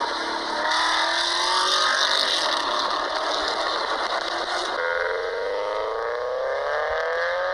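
Recorded car engine sounds played by a car-sound quiz app: first a Porsche Cayenne's engine revving, then, cut in abruptly about five seconds in, a second car's engine revving with its pitch rising steadily.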